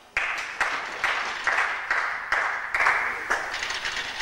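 Gymnastics parallel bars rattling and knocking under a gymnast's swings, with sharp clacks about two a second, each followed by a short rattling ring.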